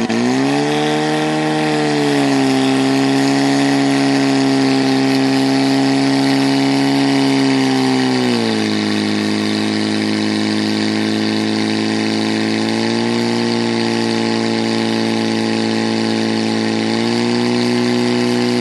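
Portable fire pump's engine running hard at high revs, driving water out to the attack hoses. It revs up at the start, drops to a lower pitch about eight seconds in, then climbs again in two small steps.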